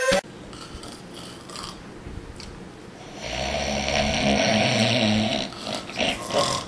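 A person snoring: after a quiet stretch, one long loud snore starts about three seconds in and lasts about two seconds, followed by a few short snorts near the end.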